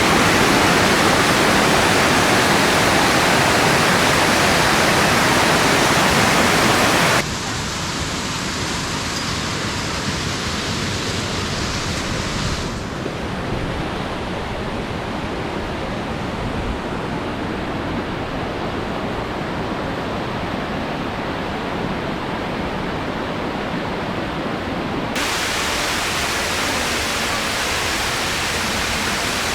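Rushing water of a mountain gorge stream and its small waterfalls, a steady hiss without any pattern. It drops abruptly in level about seven seconds in, turns duller in the middle, and brightens again near the end.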